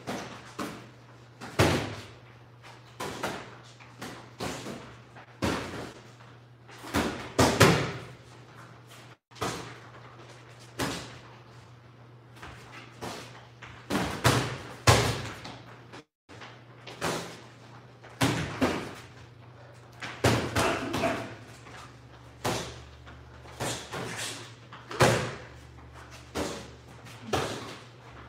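Boxing sparring in 14-ounce gloves: punches landing in irregular sharp thuds and smacks, some in quick flurries of two or three, with short lulls between exchanges.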